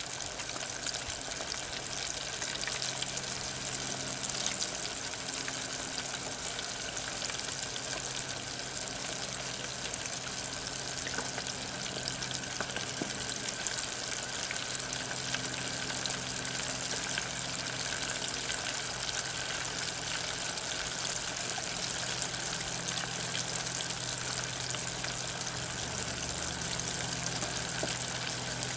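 Cornmeal-battered crappie nuggets deep-frying in a pot of hot oil: a steady sizzle full of fine crackles, over a steady low hum.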